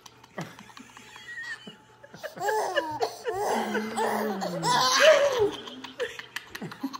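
Baby belly-laughing in loud, high, squealing peals, starting about two seconds in after a quiet start. A man's low, drawn-out voice falls in pitch beneath the laughter.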